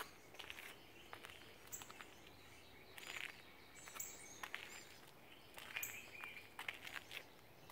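Faint bird chirps: short, high calls repeating every second or so over a quiet background hiss.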